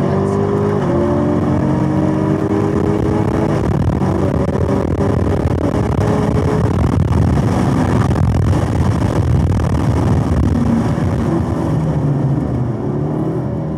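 Chevrolet Camaro ZL1 1LE's supercharged V8 at full throttle, heard from inside the car, pulling up through the gears with upshifts about one and three and a half seconds in. At top speed wind and road noise dominate, and near the end the engine drops off under braking for a corner.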